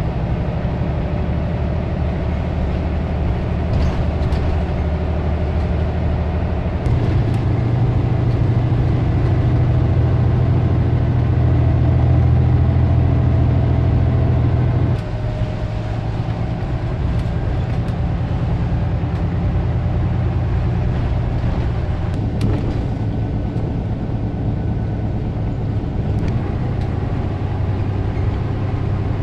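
Scania OmniCity single-deck bus heard from inside the passenger saloon while under way: a steady engine hum mixed with road noise. The engine note grows louder about seven seconds in, then drops suddenly about halfway through.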